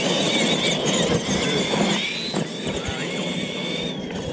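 Electric drive motors and gearboxes of R/C monster trucks whining as they race. The high whine rises and falls with the throttle and drops away shortly before the end.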